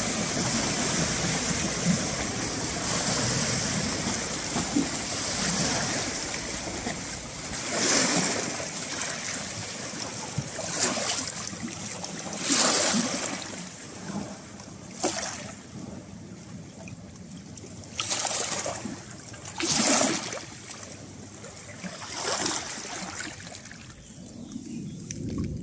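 Small waves lapping and splashing over rocks and pebbles at a river's edge. At first there is a steady wash, then separate surges come every two to three seconds.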